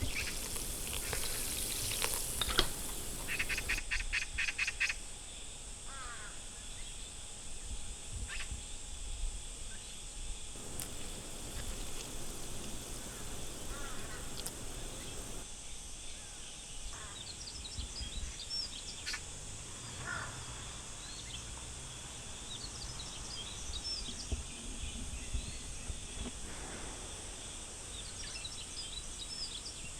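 Outdoor ambience: small birds chirping now and then over a steady background hiss, with a quick run of rapid ticks about four seconds in.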